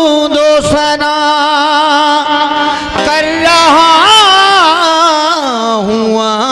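Qawwali music: a woman sings a wordless, wavering melisma over steady held harmonium notes, and her line glides down near the end.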